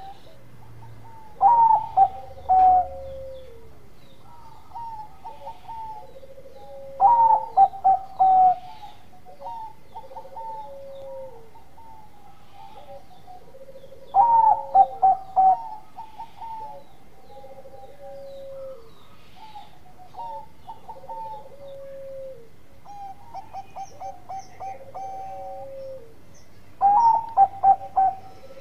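Zebra dove (Bangkok perkutut) singing its bekur cooing song: four loud phrases, each a quick run of rolling coo notes, at roughly 1.5, 7, 14 and 27 seconds in. Softer, lower cooing repeats in between.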